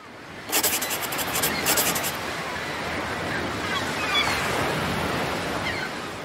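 Ocean surf: waves breaking and foam washing. It swells up over the first half second, holds steady, and eases off slightly near the end.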